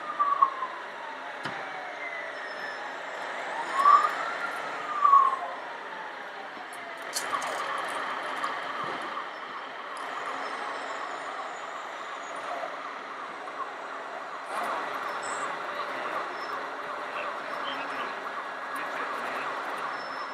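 Radio-controlled model machinery with a siren-like wail that sweeps up and slowly falls twice in the first five seconds. A sharp click comes about seven seconds in, then a steady whine continues over hall background noise.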